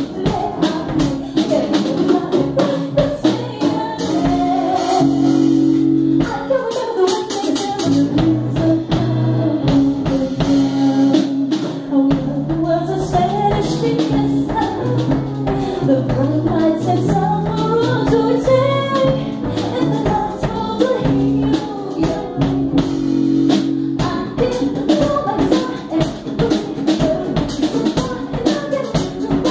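Live music: a woman singing a melody into a microphone, accompanied by piano and drums with a steady beat.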